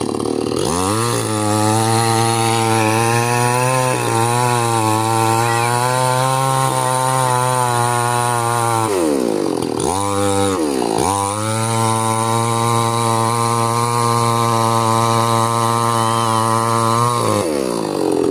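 Chainsaw engine revved to high speed and held for about eight seconds, dropping back briefly, then revved up and held again for about six seconds before falling back toward idle.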